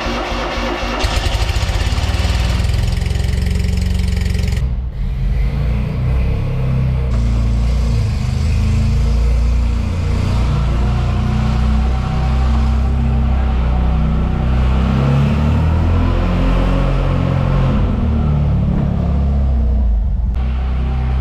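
The 595 Barchetta's small Fiat 126-based two-cylinder engine running through its twin tailpipes, louder from about a second in. About five seconds in the sound cuts abruptly to background music with a steady low beat.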